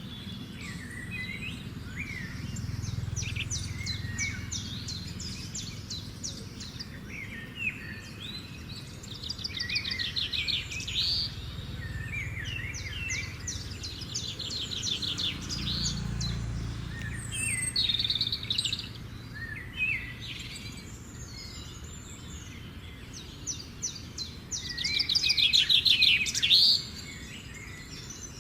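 Birds chirping, with several bouts of rapid high trills; the loudest bout comes near the end. A low rumble of background noise runs underneath.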